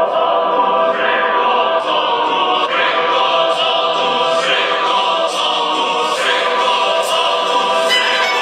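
Electronic dance track with choir-like vocals and a beat a little under once a second, played at full volume through a Redlemon rugged portable Bluetooth speaker held up to the microphone.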